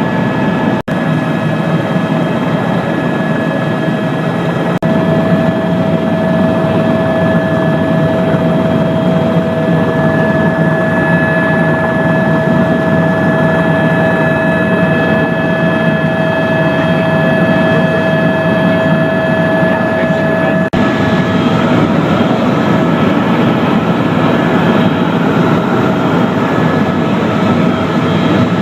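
Helicopter turbine and rotor noise, a loud steady drone with a steady high whine, broken by a few momentary dropouts.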